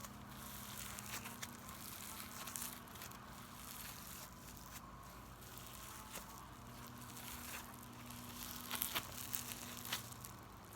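Foam slime worked by hand, giving faint crinkly crackling as the foam beads are squeezed and pulled, with a few sharper crackles near the end.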